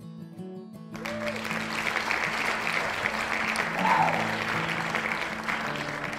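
Audience applauding, starting about a second in, over guitar background music.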